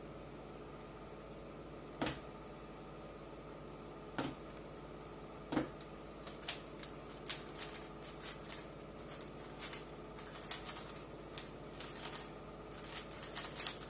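3x3 speed cube being turned fast in a timed solve: a rapid, irregular run of plastic clicks starting about six seconds in, after a few single clicks while the cube is only held and looked over.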